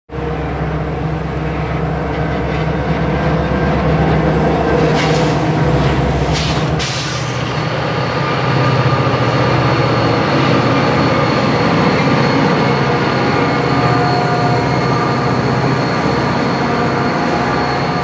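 Three EMD diesel freight locomotives working hard at full throttle, pulling a heavy train up a grade on slick rails in snow. The engines run loud and steady, with a few brief rushes of noise about five to seven seconds in and a steady high whine over the engine sound after that.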